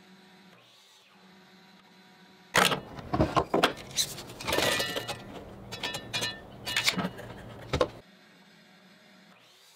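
Ryobi miter saw running and cutting through wooden boards for door stiles: about five seconds of loud, uneven sawing noise with sharp cracks, rising and falling as the blade bites, starting and stopping abruptly.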